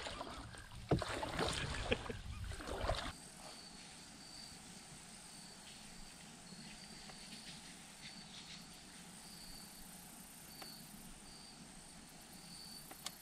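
Canoe paddling for about three seconds: water swishing and a few knocks from the paddle. Then it cuts to quiet, with a short high chirp repeating about once a second.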